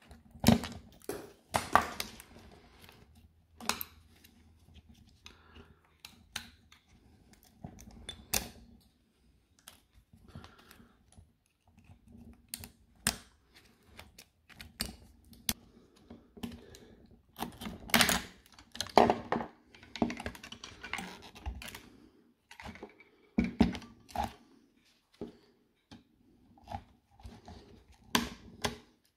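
Irregular sharp clicks, snaps and scrapes of a screwdriver and pliers prying and tearing the flexible circuit board and plastic parts off a DeWalt Flexvolt lithium-ion battery pack, some clicks coming in quick runs.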